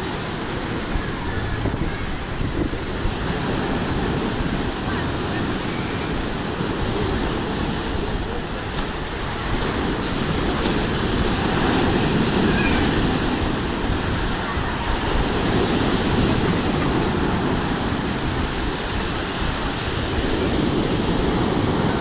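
Rough sea surf breaking on a pebble beach: a steady rush of waves that swells louder about halfway through as bigger breakers come in.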